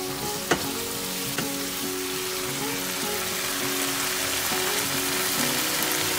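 Thick yogurt-and-spice masala sizzling in a frying pan while it is stirred with a wooden spoon, fried down until its oil separates. The spoon taps the pan sharply about half a second in and again a second later, over steady background music.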